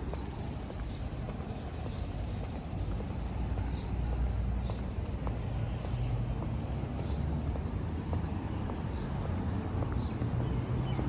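Outdoor ambience: a steady low rumble that thickens slightly about four seconds in, with short high-pitched sounds recurring about once a second.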